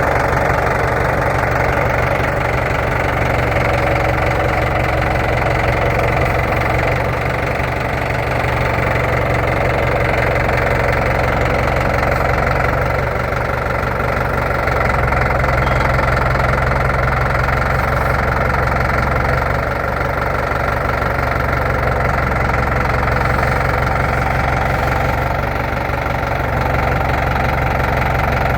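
Jeep engine running steadily at low revs; its low drone shifts in level a few times.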